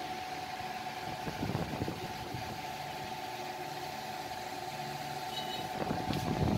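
Steady background hum with a faint high steady tone, and brief soft rustles about a second and a half in and again near the end.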